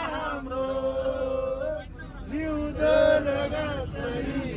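Men singing together, their voices holding long notes and gliding between pitches, over a steady low background noise.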